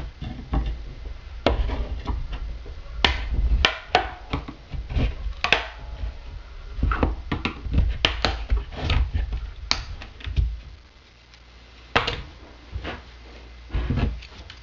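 Screwdriver prying open the cut seam of a glow plug controller module's sealed plastic housing: a run of irregular clicks, cracks and scrapes with knocks on the wooden bench, thinning out over the last few seconds as the lid comes free.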